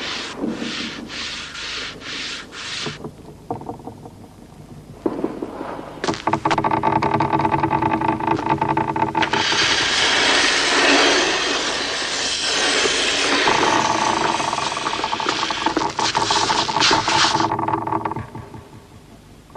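A few short rasping scrapes, then from about six seconds in a long, loud grating scrape with a steady drone running through it, fading out near the end: a box sliding across the bare platform floor.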